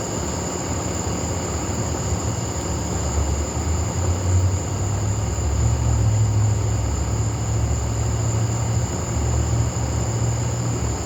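Outdoor night ambience with no thunder: a steady high-pitched hum over a low rumble that grows louder about three seconds in and then holds.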